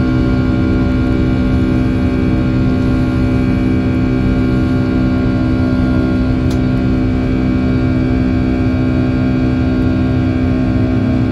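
Boeing 757-200 jet engines at climb power just after takeoff, heard from inside the cabin: a loud steady roar with many steady tones layered through it.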